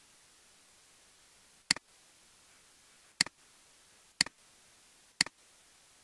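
Four computer mouse clicks, each a sharp click followed at once by a softer one, over a faint steady hiss.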